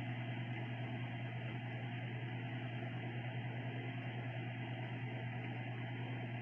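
A small electric motor humming steadily at a low pitch, with a slight fast pulsing.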